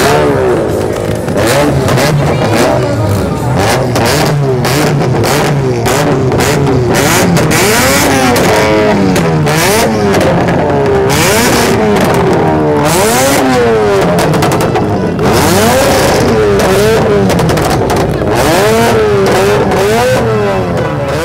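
Modified car engines revving hard over and over, their pitch sweeping up and falling back every second or two, with many sharp cracks among them.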